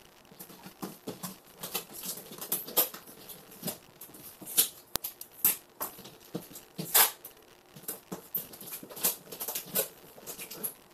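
Irregular rustling, tapping and knocking of small goods and their wrappers being handled and packed into a cardboard shipping box, with a few sharper knocks about halfway through.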